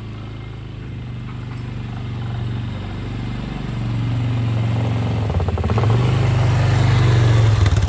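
ATV engine running as the loaded quad drives up and passes close, growing steadily louder, with the engine note shifting a few times with the throttle in the second half.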